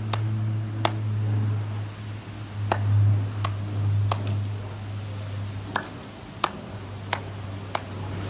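Sharp single clicks, most about 0.7 s apart with two longer pauses, over a steady low hum.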